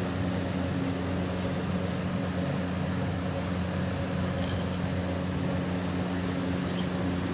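Steady low motor hum of a running household appliance, with one faint sharp click about four seconds in.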